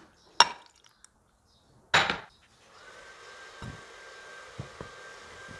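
Two sharp clinks of kitchen utensils against a bowl, then a small electric kitchen appliance motor starts about two and a half seconds in and runs steadily with a thin whine, with a few light knocks over it.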